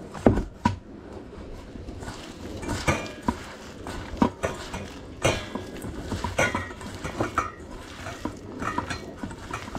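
Gloved hand mixing minced meat with an egg in a stainless steel bowl: irregular knocks and clinks of the hand and mince against the metal bowl.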